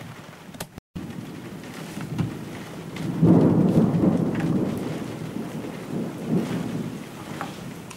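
Rolling thunder over steady rain. The rumble builds about two seconds in and is loudest a second later, swells twice more and then fades. The sound drops out completely for a moment about a second in.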